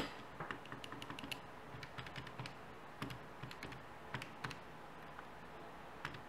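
Keys of a Texas Instruments TI-34 MultiView scientific calculator being pressed one after another: a run of faint, irregular clicks.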